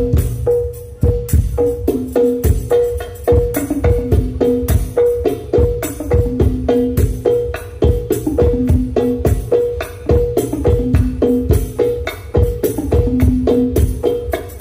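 Hadroh percussion ensemble playing a steady, fast rhythm on hand drums and frame drums, with sharp slaps and a repeating pattern of a higher and a lower drum tone, during a sound check.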